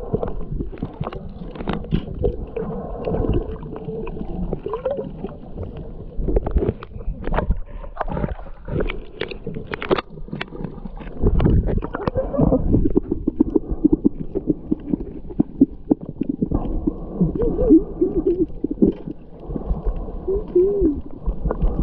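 Muffled gurgling and sloshing of water around a snorkeler's camera, with many scattered knocks and clicks and a few short wavering tones near the end.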